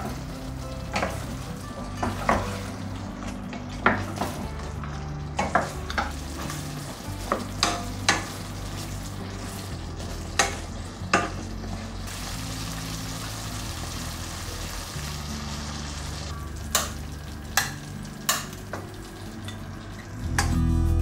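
Sauce sizzling in a stainless steel pan as fried chicken wings are stirred through it with a wooden spatula, with a steady hiss and about a dozen sharp knocks and scrapes of the utensils against the pan.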